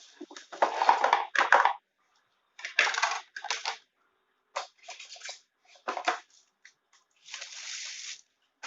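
Packaging rustling and crinkling as it is handled and pulled apart, in irregular bursts of a fraction of a second to about a second.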